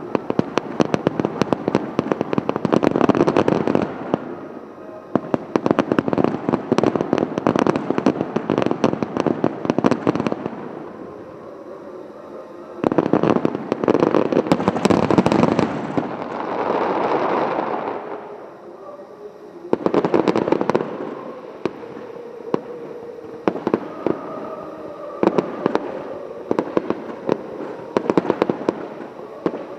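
Fireworks display: dense barrages of aerial shells bursting with rapid crackling, in loud waves separated by a brief lull. A rushing hiss swells and fades midway, followed by more scattered bangs.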